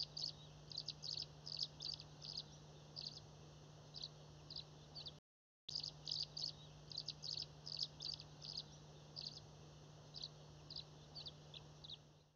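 A small bird chirping over and over, short high chirps several a second in an uneven run, over a steady low hum. The sound drops out for a moment about five seconds in.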